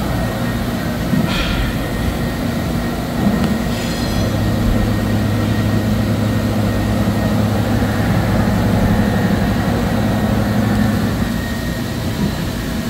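Gildemeister Twin 65 CNC turning and milling center running with a steady low hum, with a brief high hiss about a second in.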